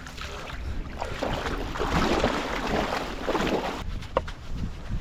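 Water splashing and sloshing around a fishing kayak, with wind on the microphone and a sharp knock near the end.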